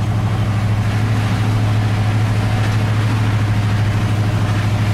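1978 GMC truck's engine running steadily at low revs, a constant low drone heard from inside the cab while the truck creeps along.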